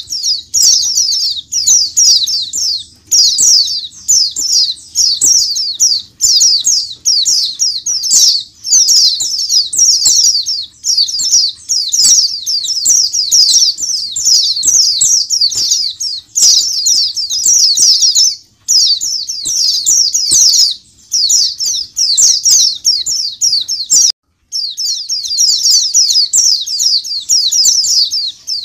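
A crowd of caged white-eyes (pleci) chirping and trilling all at once in a dense, high-pitched chorus with frequent small clicks. This is the massed 'ombyokan' chorus that keepers play to prompt pleci to sing. The chorus breaks off briefly about 24 seconds in.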